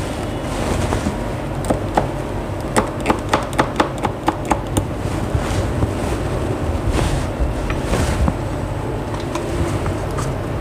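Steady low rumbling noise with a quick run of about eight light clicks, around four a second, starting about three seconds in, and a few scattered clicks elsewhere.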